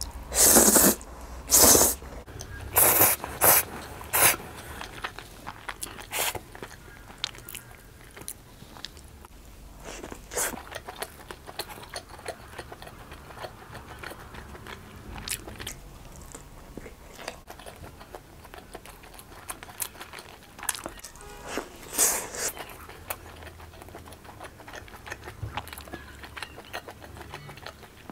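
Close-miked eating: loud slurps of spaghetti in the first few seconds, then chewing and biting into a slice of pizza with firm crust, many small wet mouth clicks, and a louder bite or slurp about 22 seconds in.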